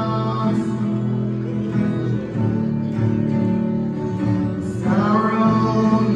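A live acoustic song: a man singing over two acoustic guitars. The voice holds a note that ends just after the start, leaves the guitars alone for a few seconds, then comes back near the end.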